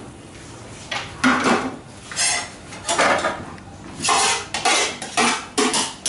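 A spoon scraping and knocking against the inside of an aluminium cooking pot as the last of the cooked trotters and gravy are scraped out. The strokes come quicker from about two-thirds of the way in, roughly two or three a second.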